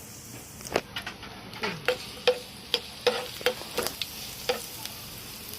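Garlic frying in hot cooking oil in a pan, sizzling steadily, while a utensil stirs it, knocking and scraping against the pan about a dozen times at uneven intervals.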